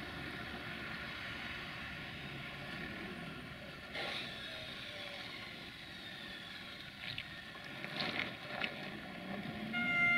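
LDE2100 (060-DA) diesel-electric locomotive's Sulzer diesel engine running steadily as it draws a freight train slowly forward, with a few sharp knocks in the second half. Near the end the locomotive's horn starts sounding, a chord of steady tones.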